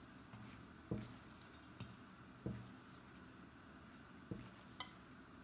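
A hand mixing riced potato with butter and egg yolk in a stainless steel bowl: faint soft pats and about five short thumps as the hand presses the mash down against the bowl.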